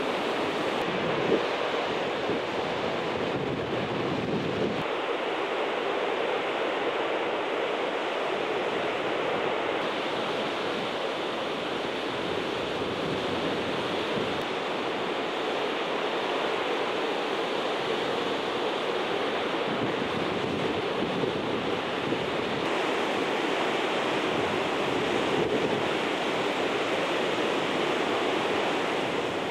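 Dynjandi waterfall's steady rushing roar of falling water, with some wind on the microphone.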